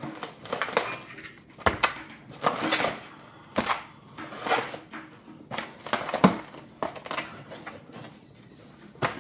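Groceries being unpacked: a reusable shopping bag rustling and clear plastic meat trays crinkling as they are lifted out, with a few sharp knocks as packs are set down on the counter.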